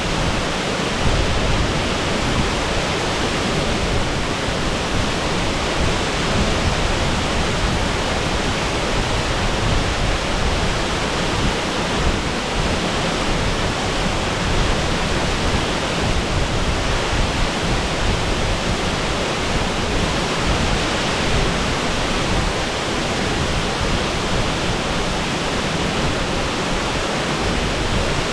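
Waterfall pouring down: a steady, loud rush of falling water that does not change.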